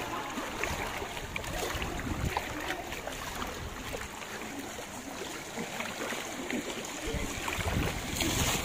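Floodwater sloshing and splashing as legs wade through it, a steady churning with many small splashes, heavier low rumbling about seven seconds in.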